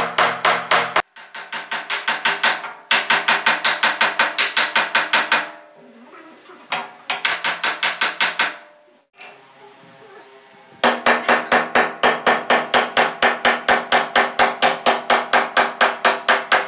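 Hammer blows on a solid-wood bed frame, fast and even at about three to four strikes a second, each with a short ringing tone. They come in several runs separated by brief quieter pauses.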